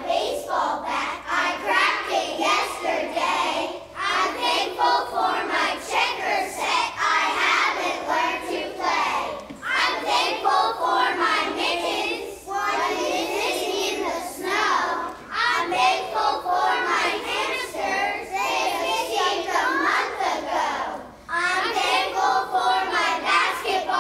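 A group of first-grade children singing together, in phrases with brief pauses between them.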